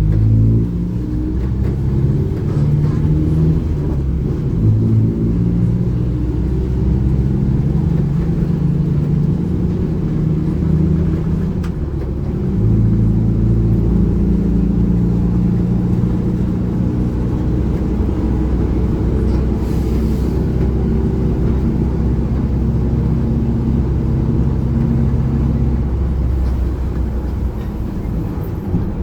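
Mercedes-Benz OF-1722M bus running with its rear differential growling: a continuous low hum with several steady tones that shift in pitch as the bus changes speed. It dips briefly about twelve seconds in, then comes back.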